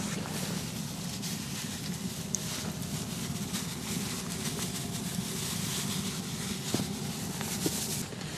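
Split firewood burning in an open steel fire stand, with scattered crackles and pops over a steady low rushing sound. A couple of light clicks come near the end.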